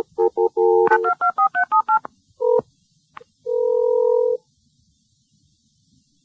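Telephone keypad tones as a number is dialed: a quick run of about a dozen short beeps of differing pitch, one more beep, then a single steady beep about a second long.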